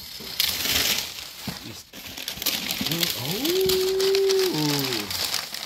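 Wrapping paper rustling and crinkling as hands dig through a plastic tote of paper-wrapped items. About three seconds in, a person makes a long hummed vocal sound that rises, holds and falls away.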